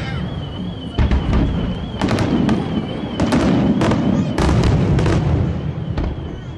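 Aerial fireworks display: a rapid run of loud shell bursts and bangs, about two a second, with a low rumbling echo between them. The bursts thin out near the end.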